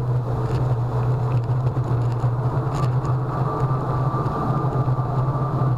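Solowheel electric unicycle rolling over pavement: a steady low hum with road rumble from the wheel, and a faint high whine joining about halfway through.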